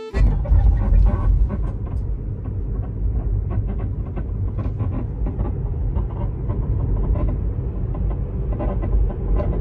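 Tesla Model 3 driving, a steady low road rumble with scattered faint ticks and no engine note.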